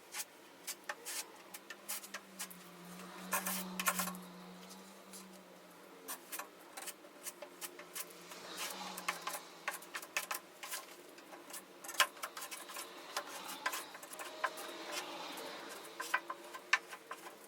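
Hand-work scraping and rubbing, with many small irregular clicks and taps, typical of body filler being worked on the steel door with a spreader or hand tool.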